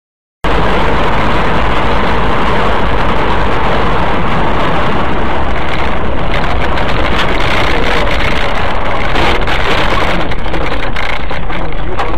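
Loud, steady road and wind noise of a car driving fast, heard through a dashcam inside the car, starting abruptly about half a second in.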